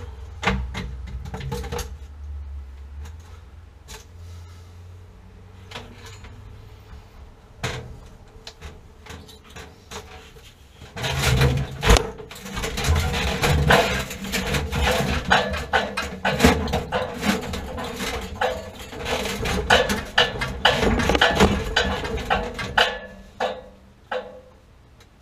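Clicks, knocks and clattering of metal parts and tools being handled at a water heater during installation work: scattered at first, then a busy stretch of clattering from about halfway through until shortly before the end.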